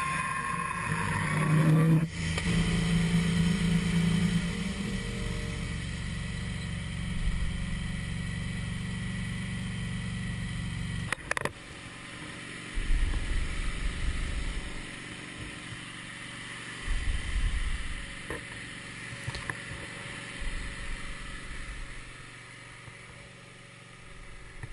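Wood-Mizer LT15 band sawmill running, its engine driving the band blade through an oak log. About eleven seconds in there is a sharp knock and the machine sound drops away, leaving a quieter run with a few short low rumbles.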